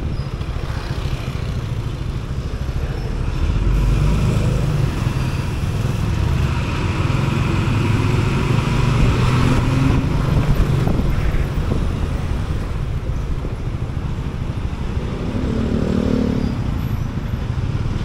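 City road traffic heard from a moving scooter: a steady low engine rumble with road and wind noise, growing somewhat louder from about four seconds in while riding close behind a bus, then easing off.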